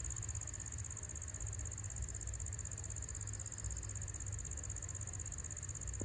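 Insects trilling steadily outdoors, one high, even tone that does not let up, over a low rumble.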